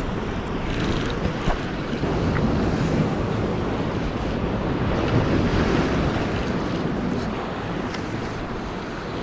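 Ocean surf washing and breaking against jetty rocks, a steady rush, with wind buffeting the microphone.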